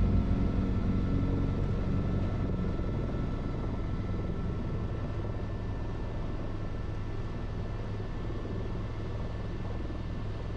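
Tour helicopter's engine and rotor heard from inside the cabin as it comes in to land on the helipad: a steady drone that grows gradually quieter.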